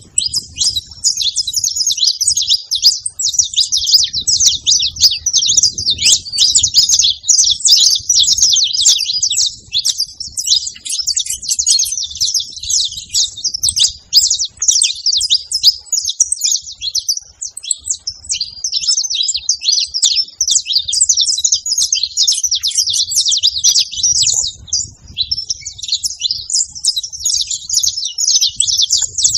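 Many saffron finches chirping and singing together, a dense chorus of short, high, overlapping calls with no pause.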